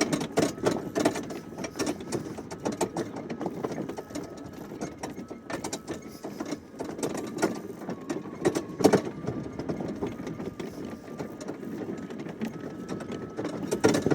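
Electric drive motor of a Greenworks battery-powered riding lawnmower whining steadily as it drives, with irregular knocks and clatter from the towed wagon of firewood jolting over rough ground.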